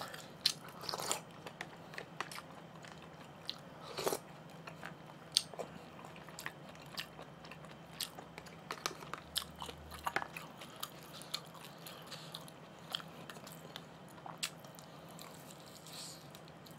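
Faint eating sounds: chewing and mouth noises of someone eating rice and short ribs, with scattered small clicks and taps, a stronger one about four seconds in.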